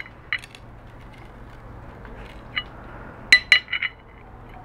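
Sharp metal clinks of a bent steel tool levering at the crimped lip on the neck of a Mitsubishi 3000GT electronic strut tube, worked around a bit at a time to open the crimp. There are a few single clinks, then a quick cluster of four or five about three and a half seconds in.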